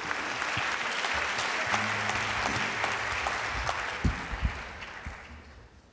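Audience applauding, dying away over the last two seconds, with a few low thuds about four seconds in.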